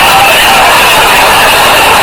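Sound-effect recording of a stadium crowd played back as a loud, steady roar of noise with no distinct voices or beats.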